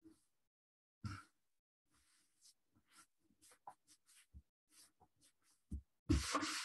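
Hands handling and smoothing sheets of paper on a journal page: a run of short, soft rustles and taps, with a louder rustle about six seconds in.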